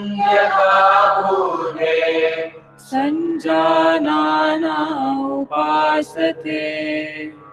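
A voice chanting a prayer mantra in long held notes, with short pauses between phrases. A low steady drone sounds under the first few seconds.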